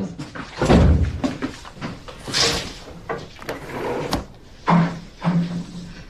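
A wooden room door being opened and shut, with a heavy thud about a second in and a couple of sharp clicks later.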